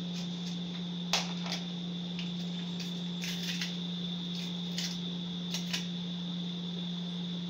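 Scattered light clicks and scrapes of a kitchen knife cutting the skin off green bananas over a bowl, the sharpest about a second in, over a steady electrical hum.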